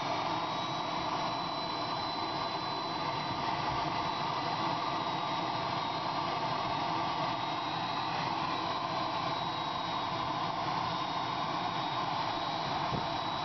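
Radio-controlled model jet's turbine engine running steadily: a high, thin whine over a rushing hiss.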